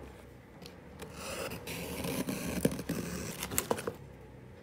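Brown paper and cardboard parcel packaging rustling and scraping as it is opened by hand and a card is pulled out, with a few sharp crinkles near the middle and end.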